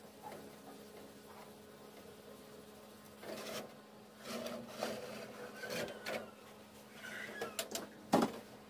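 Aluminium cake tin scraping and clanking against the metal racks of a tin stovetop oven as it is lifted out with a cloth: a series of scrapes and knocks, the loudest a sharp metal knock near the end, over a steady low hum.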